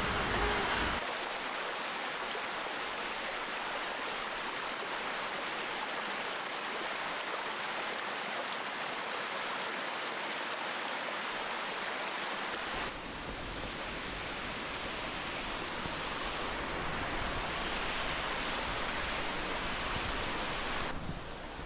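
Waterfall rushing: a steady hiss of falling water. It changes abruptly about a second in, and again about two-thirds of the way through, when a deeper low rumble joins the hiss.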